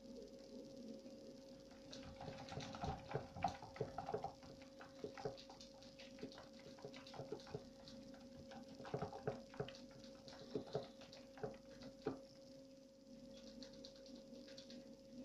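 Rat running in a 33 cm Trixie plastic running wheel: an irregular patter of light clicks and knocks from its feet and the turning wheel. It starts about two seconds in and dies away a few seconds before the end, over a faint steady hum.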